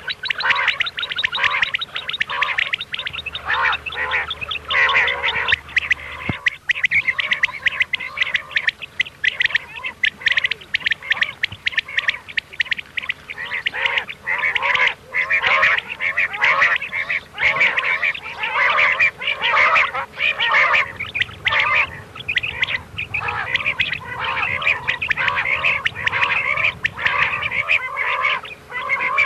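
Common quail (batair) calls: a dense chorus of short, quickly repeated notes from several birds calling over one another. It is a mixed call recording made as a lure for quail hunting.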